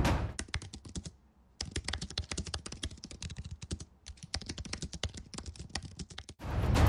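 Fast typing on a computer keyboard: a quick run of key clicks with two short pauses. Music cuts off just as the typing starts, and loud music comes back near the end.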